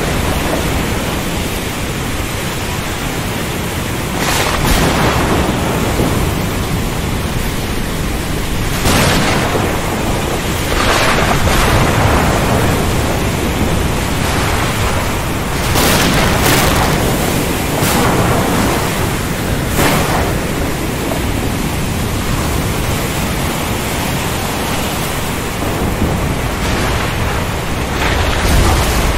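Thunderstorm over the sea: a steady roar of heavy rain and surf, broken by several sharp cracks of thunder that each flare up and fade within about a second, with a deeper rumble near the end.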